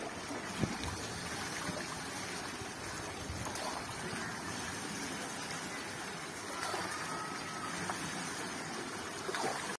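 Stream water rushing and splashing around a small bucket water wheel as it turns, with water trickling from its buckets. A single sharp knock shortly after the start.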